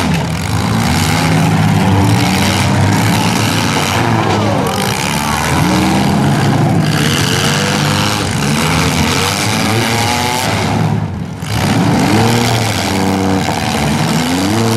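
Several small-car demolition derby engines revving up and down at once, overlapping as the cars ram and shove each other, over a steady rumble of noise.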